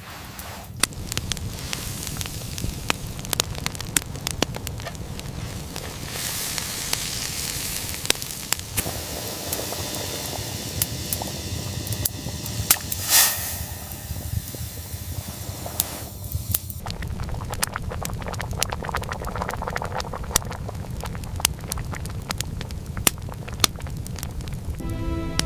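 Fire crackling: many sharp pops and snaps over a steady rushing noise, with one louder burst about thirteen seconds in.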